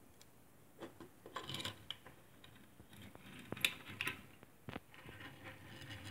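Majorette die-cast metal toy cars handled on a wooden tabletop: scattered light clicks, knocks and scrapes as they are turned over, set down and moved about.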